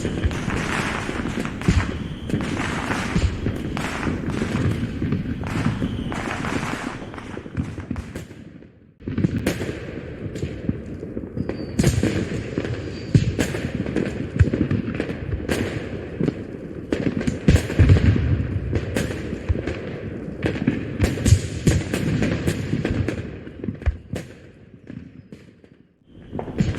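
Dubbed-in fireworks sound effect: a dense barrage of aerial shell bursts, low booms mixed with sharp crackling. It fades away about nine seconds in, starts again a moment later, and fades out once more near the end.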